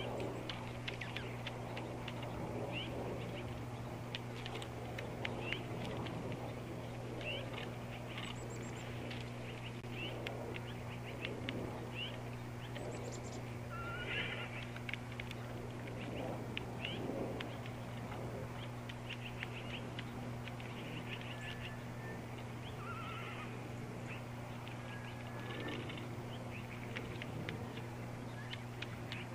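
Horses and birds: a horse whinnies among frequent short bird chirps and calls, over a steady low hum.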